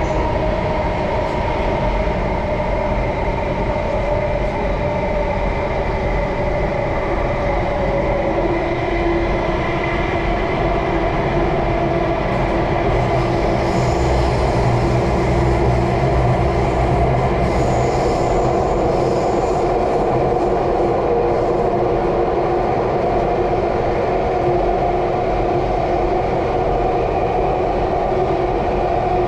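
Singapore MRT electric train running along the track: a steady rumble of wheels with a motor whine whose pitch slowly shifts, and a faint high wheel squeal around the middle.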